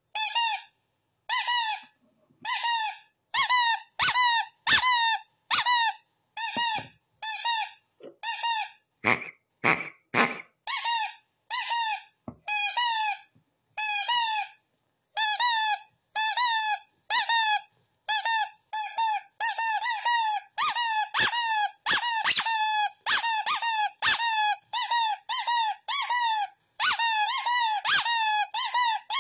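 Rubber duck squeaking over and over, short pitched squeaks about one to two a second with brief gaps between them. About nine seconds in come three lower-pitched, fuller squeaks in quick succession.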